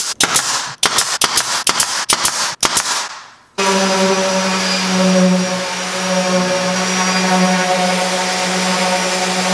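Pneumatic brad nailer firing a quick series of sharp shots as brad nails are driven into a plywood cabinet back. About three and a half seconds in, a DeWalt random orbital sander starts and runs steadily with a constant hum, sanding the plywood.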